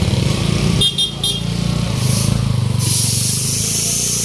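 Kawasaki Bajaj CT125 motorcycle's single-cylinder engine running as the bike, with a sidecar attached, pulls away and rides off.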